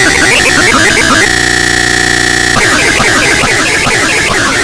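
Loud cacophony of many overlapping, distorted copies of cartoon soundtrack audio, thick with short falling squeaks. About a second in, a steady harsh buzzing tone takes over for about a second and a half, then the jumble returns.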